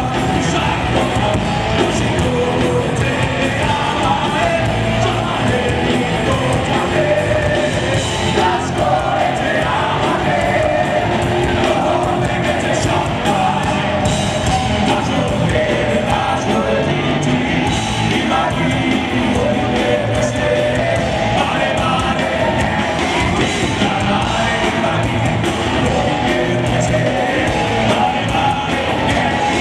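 A metal band playing loud and steady, with electric guitars and a man singing.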